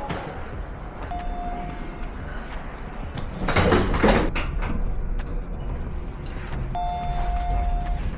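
Vehicle sliding door closing: a short electronic warning beep, a noisy sliding rush, then a second beep, over a steady low rumble.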